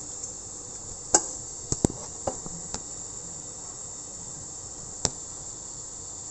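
Sharp clicks and knocks of kitchen things being handled while a drink is made. There are a few close together in the first three seconds, the loudest about a second in, and one more about five seconds in, over a steady high hiss.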